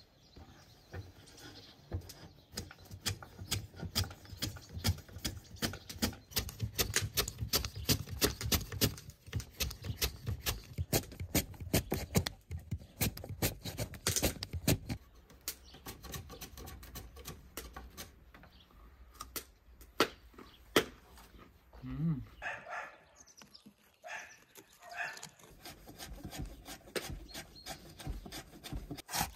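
Vegetables being cut by hand on wood: a kitchen knife chopping on a wooden board and a wooden vegetable slicer scraping. It goes as a fast run of sharp strokes that thins out about halfway through.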